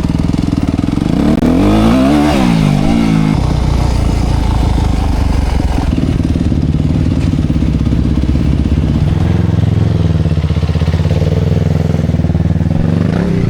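Dirt bike engine running, revving up and back down about two seconds in, then holding a steady pitch.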